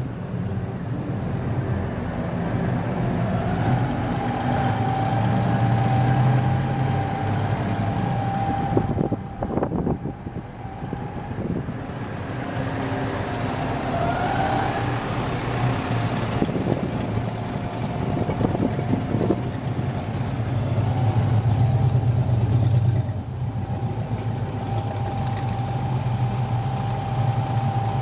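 Road traffic noise heard from inside a car in slow city traffic: a steady low engine hum from the car and a bus close alongside, swelling louder about three quarters of the way through.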